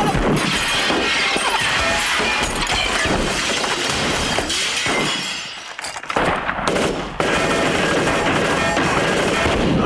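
Film score music mixed with a dense clatter of sharp cracks and impacts for the first five seconds. The sound dips briefly, then gives way to a steady loud rumble about seven seconds in.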